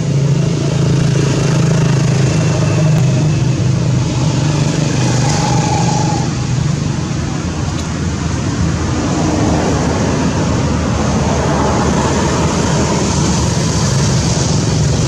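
Steady low engine hum with road traffic noise.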